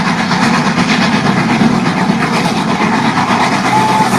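A running train sound, a steady rumble and rattle. A thin steady tone comes in near the end.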